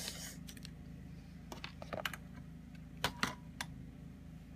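A few scattered light clicks and taps of small objects being handled on a desk, the sharpest pair about three seconds in, over a steady low hum.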